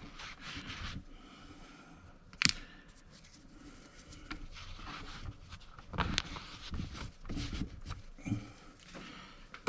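Hand work on a car's battery cables and tools: scattered scrapes and rustles, a sharp metallic click about two and a half seconds in, and a run of knocks and handling noises later on.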